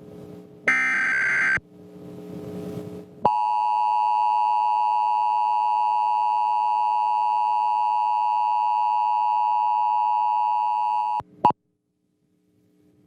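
Emergency Alert System broadcast: a SAME header data burst, a harsh digital screech about a second long, then after a short gap the EAS two-tone attention signal (853 and 960 Hz) held steady for about eight seconds. It cuts off sharply about eleven seconds in.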